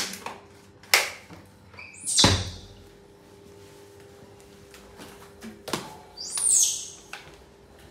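Baby monkey giving two high-pitched squeals, each rising then falling in pitch, about two seconds in and again near the end, with sharp knocks and clatters from handling in between.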